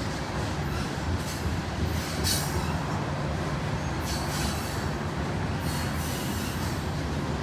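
Loaded coal hopper cars of a unit coal train rolling along the track with a steady low rumble. Brief high-pitched wheel squeals break in every second or two.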